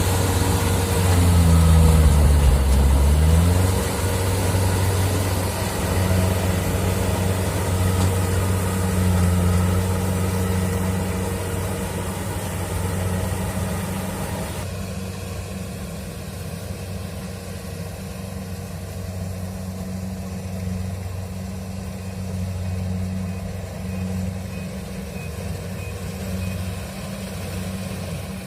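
Kubota DC-70 Plus rice combine harvester's engine running steadily. Its pitch dips and recovers about two seconds in. About halfway through, a high hiss cuts off abruptly and the sound gets gradually quieter.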